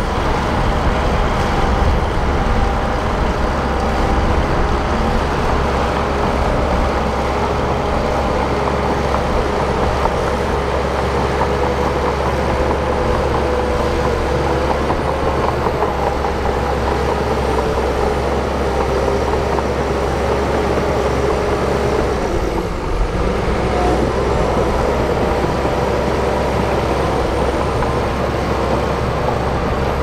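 Bulldozer's diesel engine running steadily, with a brief dip in the sound about two-thirds of the way through.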